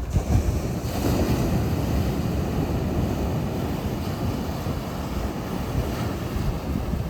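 Sea waves surging and washing on the shore, the sound swelling suddenly at the start and holding for about seven seconds, with wind buffeting the microphone.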